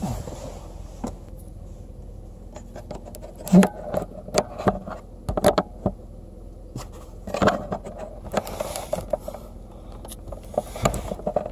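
Steady low rumble of a stationary vehicle's engine heard from inside the cab, with irregular knocks, rustles and scrapes close to the microphone. The loudest knocks come about three and a half seconds in and again around four, five and a half and seven and a half seconds in.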